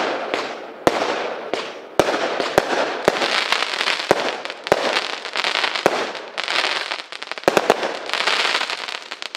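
A Benwell 'Fire in the Hold' 26-shot firework cake firing: sharp bangs about once or twice a second, each followed by the hiss of a breaking shell. From about three seconds in there is dense crackling, and the sound dies away at the end.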